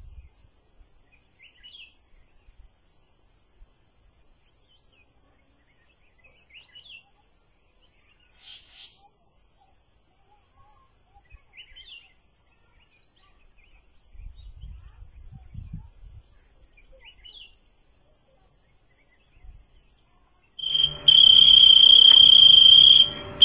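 Crickets and other night insects trilling steadily, with a short chirp repeating every five seconds or so and some low bumps about two-thirds of the way through. Near the end a much louder, steady high-pitched tone cuts in.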